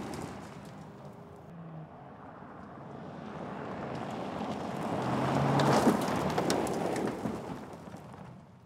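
A 2023 Mercedes-Benz GLC SUV driving fast on a loose dirt and gravel track, heard mainly as the rush of its tyres with scattered stone clicks. It grows louder as it approaches, peaks about six seconds in as it passes, then fades away.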